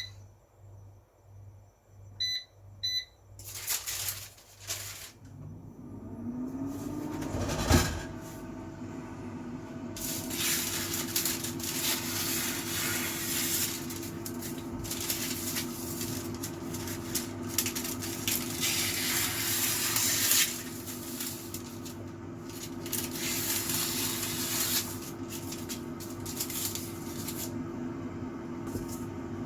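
Air fryer's control panel beeps three times, then its fan motor spins up with a rising whine and settles into a steady hum with a rush of hot air. A single knock about eight seconds in.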